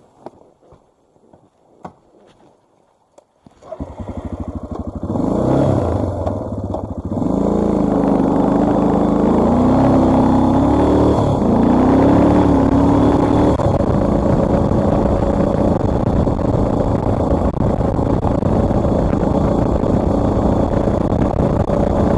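A few faint clicks, then a dual-sport motorcycle engine starts about three and a half seconds in. It revs up and down through gear changes as the bike pulls away, then runs steadily under riding load with wind noise.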